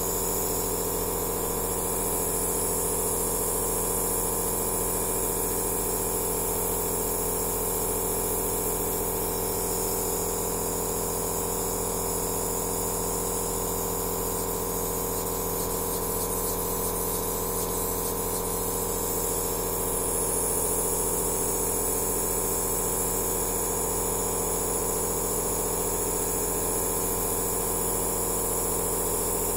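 Aerosol therapy nebulizer machine running steadily: an even motor hum under a high hiss of air.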